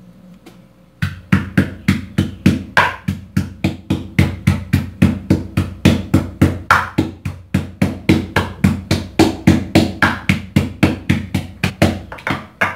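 Pestle pounding in a mortar, crushing seasoning for chicken: a steady run of knocks, about four a second, each with a short hollow ring. It starts about a second in and stops just before the end.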